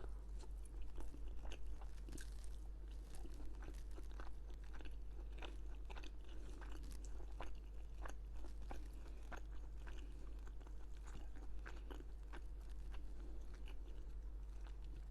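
A person chewing and crunching food close to the microphone, with irregular small clicks of biting and mouth sounds.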